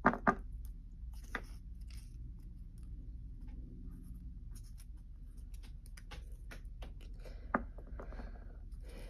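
Small paper sheets being handled and plastic toy figurines tapping and clicking on a wooden tabletop, over a low steady hum. Two sharp taps come right at the start and a few lighter ones follow.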